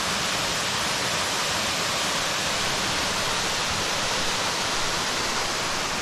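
Waterfall pouring into a pool: a steady, even rushing of falling water.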